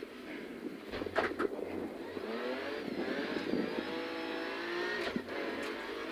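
Rally car engine heard from inside the cockpit, accelerating with its note rising, then holding steady. A couple of sharp clicks come about a second in, and the engine note breaks briefly about five seconds in.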